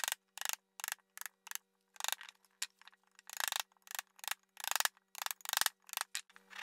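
A hand-pushed wood chisel cutting and paring inside a mortise, a quick series of short crunching strokes, about two or three a second, as the blade shears the wood fibres.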